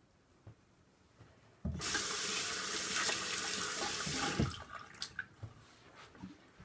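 A sink tap turned on, the water running steadily for nearly three seconds before it is shut off, with a low knock as it opens and as it closes.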